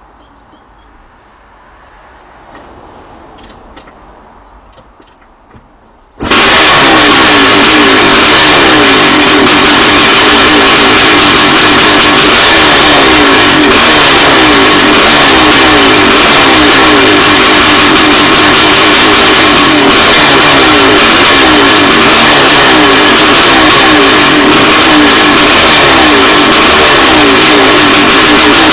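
Honda CR500 two-stroke single-cylinder engine catching about six seconds in, after a few faint clicks, then running and revving very loudly.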